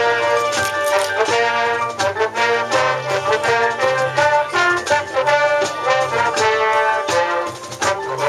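Marching band playing a field show: the brass section sounds held chords, with sharp percussion hits among them. The music drops briefly near the end, then comes back in with a hit.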